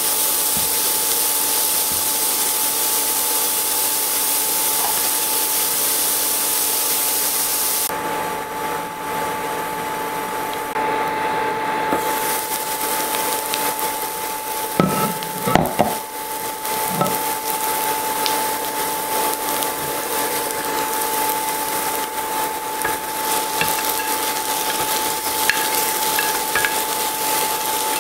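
Diced onions sizzling in a nonstick frying pan on an induction cooktop, with a steady high whine underneath. The sizzle drops back for a few seconds about a third of the way in, and a few knocks against the pan come about halfway through.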